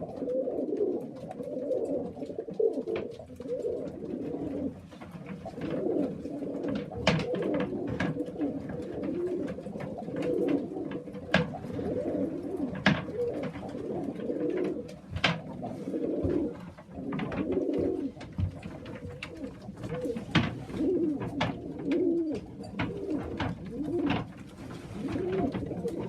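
Several pigeons cooing continuously in an enclosed loft, the courtship cooing of birds being paired up. Sharp clicks and taps sound here and there throughout.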